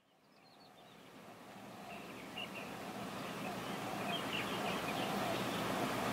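Outdoor street ambience fading in gradually from silence: a steady hiss of traffic with small birds chirping now and then.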